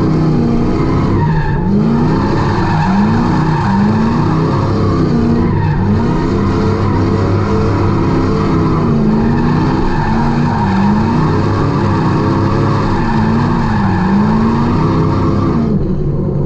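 Fox-body Ford Mustang drifting: the engine's revs rise and fall over and over, about once a second, over steady tyre skid noise. The sound breaks off sharply near the end.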